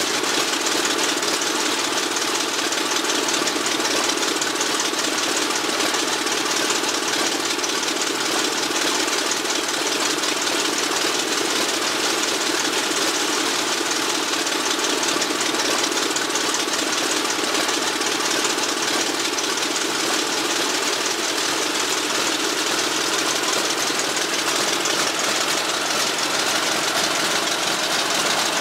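Pratt & Whitney R-2800 radial piston engine of a Douglas A-26B Invader running steadily on a ground run, an even, unbroken engine note.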